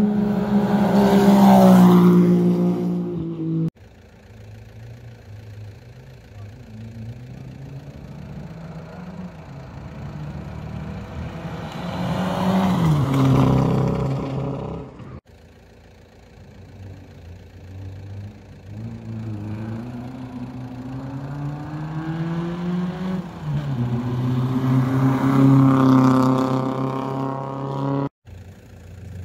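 Rally cars driving hard along a tarmac stage in three separate passes, engines revving high and sweeping up and down in pitch through the gear changes. Each pass builds to a loud peak as the car goes by, then cuts off abruptly.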